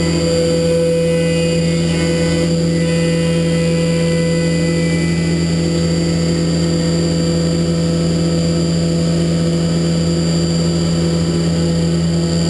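Haas Super Mini Mill 2 CNC mill running a clean-up milling pass: a steady machine whine made of several held tones, one of which drops out about five seconds in.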